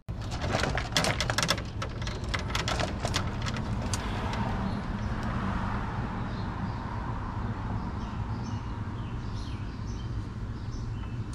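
A quick run of sharp clicks and rattles lasting about three seconds, then a steady low background with faint bird chirps near the end.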